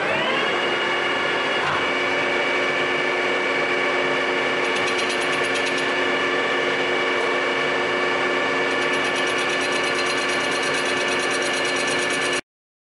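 Metal lathe spinning up with a rising gear whine, then running steadily below full speed with a whine of several steady tones as it turns a steel ring in the chuck. The sound cuts off suddenly near the end.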